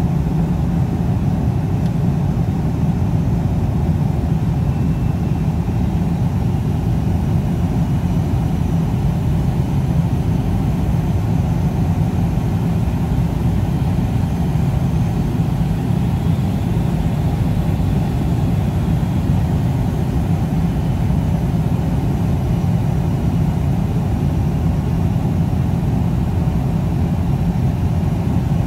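Steady cabin noise of a McDonnell Douglas MD-83 descending on approach: a constant low rumble of airflow and its tail-mounted Pratt & Whitney JT8D engines, with a faint high whine above it.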